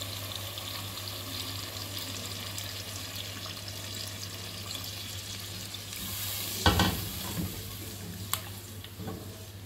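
Broth poured into a pot of duck meat browned in hot oil, pouring and sizzling in a steady hiss; about two-thirds through a loud knock, then a wooden spoon stirring the liquid with a sharp click near the end. A steady low hum runs underneath.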